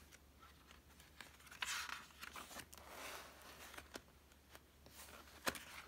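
Faint paper rustling and light handling clicks as a picture book's cover is opened and its pages are turned, with the loudest rustle about two seconds in.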